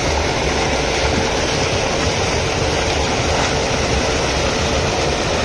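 Water from a running tubewell gushing out of its outlet pipe at high pressure: a loud, steady rush, with a faint steady hum underneath.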